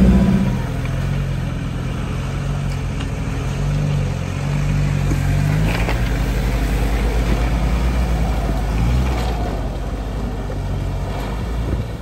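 Off-road 4x4's engine running steadily while driving, getting a little louder from about four seconds in and easing off again near the end.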